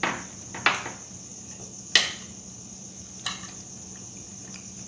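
A metal spoon clinking against a ceramic plate about four times while scooping up food, over a steady high-pitched whine.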